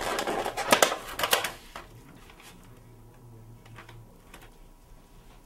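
Clear plastic takeout clamshell container being handled and pried open: crinkling and crackling with a couple of sharp plastic snaps in the first second and a half, then a few faint clicks.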